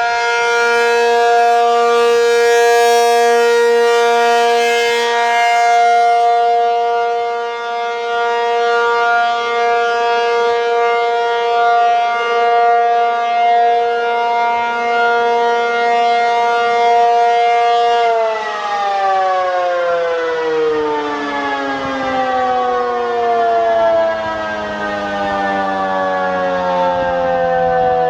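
ACA P-50 outdoor tornado siren sounding a steady alert tone whose loudness wavers slightly. About two-thirds of the way through, it shuts off and winds down, the pitch falling steadily as the rotor slows.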